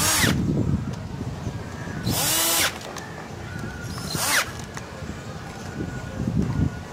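Power drill with a socket running in the cylinder head cover bolts of a Honda CD-70 engine, snugging them lightly: three short bursts, at the start, about two seconds in and about four seconds in.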